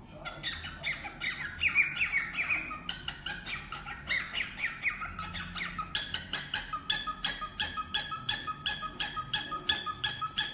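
Pet parrot squawking in a rapid series of short, harsh calls. At first it chatters irregularly, then about halfway through it settles into an even run of identical squawks, about four a second.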